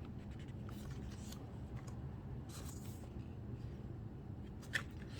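Soft paper rustling as the pages of a small photo diary are handled and turned, with a sharp tap near the end over a faint steady room hum.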